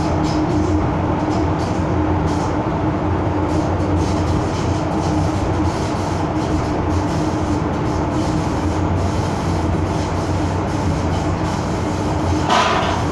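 Hong Kong MTR M-Train (Metro-Cammell electric multiple unit) running at speed, heard from inside the car: a loud, steady rumble of wheels and running gear with a constant hum. A short, sharper burst of noise comes near the end.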